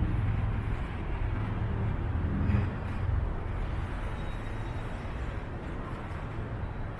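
Low rumble of a passing motor vehicle's engine, fading away, over steady city traffic noise.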